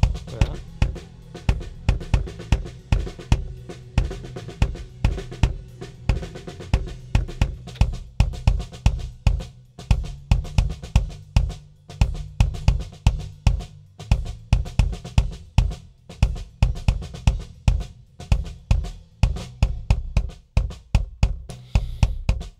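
Recorded kick drum microphone track played back through an EQ, compressor and gate preset on a digital mixing console: kick beats in a steady groove, with snare and cymbal spill from the rest of the kit between the hits. Upper mids around 1 kHz still come through, and the gate is not keeping the spill out.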